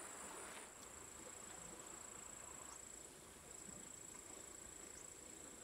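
Faint, steady, high-pitched insect whine of crickets singing.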